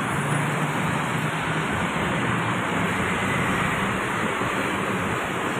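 Steady road traffic noise as a Suroboyo Bus city bus drives past close by among cars and motorbikes, with a low engine hum early on.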